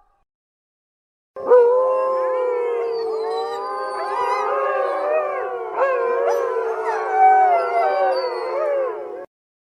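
A pack of wolves howling in chorus: many howls overlap, each gliding up and down in pitch. The chorus starts about a second and a half in and stops abruptly shortly before the end.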